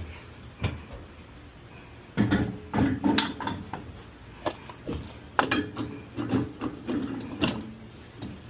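Metal clicks, knocks and rattling as a tire and wheel are fitted onto a wheel balancer's shaft with its centering cone and clamped down, several sharp knocks a second or more apart.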